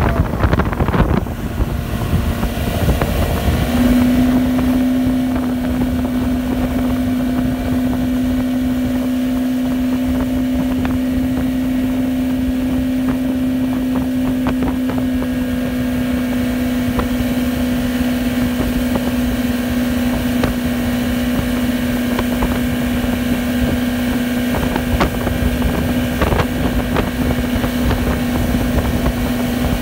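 Johnson 88 SPL two-stroke V4 outboard motor running at steady planing speed while towing, its note rising a little and then holding one pitch from about four seconds in. Wind buffets the microphone.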